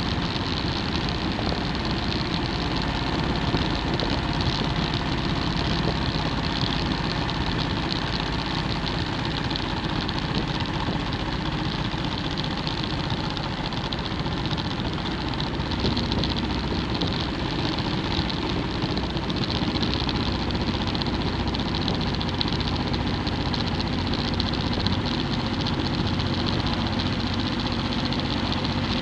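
Motorcycle engine running steadily while riding at an even road speed, under a constant rush of wind noise.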